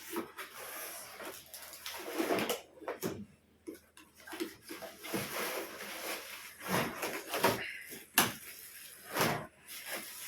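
A parcel being opened and handled: packaging rustling, with scattered clicks, knocks and scrapes.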